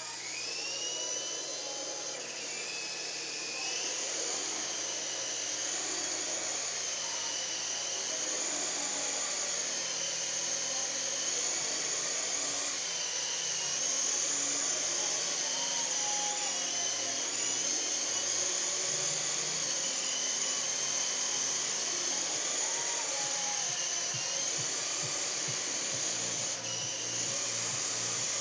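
Syma S031G indoor RC helicopter's electric motors and rotors whining as it spins up from the floor and flies. The high whine rises in pitch over the first couple of seconds, then wavers up and down with the throttle.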